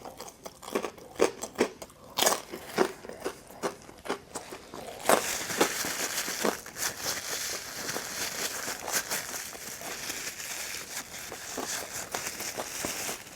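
Close-miked chewing and crunchy bites of Detroit-style pizza, sharp crisp clicks over the first few seconds. About five seconds in, a denser, steady crackling rustle sets in and runs under the chewing.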